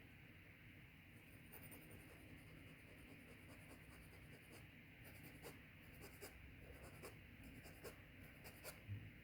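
Faint scratching and small sharp clicks from hand tools working on a Zippo lighter's hinge as the hinge barrels are realigned and squeezed tighter. The clicks are scattered and come more often in the second half.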